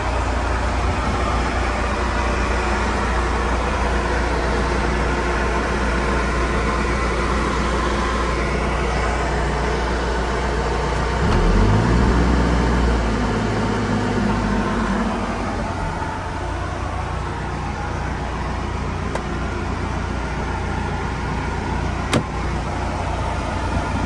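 Caterpillar 420E backhoe's diesel engine running steadily, heard from inside the cab. About eleven seconds in, the hand throttle is opened: the engine revs up quickly, holds at higher revs for a few seconds, then settles back toward idle. A single sharp click near the end.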